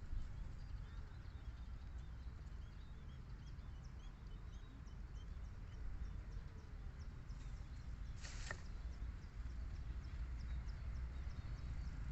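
Small birds chirping in quick, short, high notes over a low steady rumble, with a brief louder raspy burst about eight seconds in.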